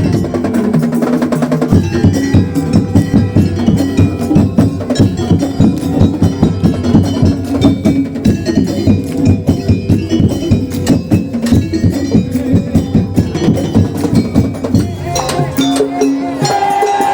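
Madurese daul music: a fast, even beat of drums and clacking wood-block-like strikes over steady pitched notes, the ensemble shifting its pattern near the end.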